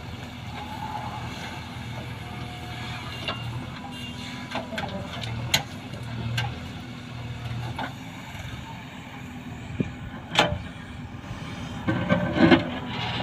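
JCB 3DX backhoe loader's diesel engine running steadily as the backhoe digs and dumps earth, with scattered clanks and knocks of the bucket and stones. A louder spell of knocking and scraping near the end as the bucket digs into the ground.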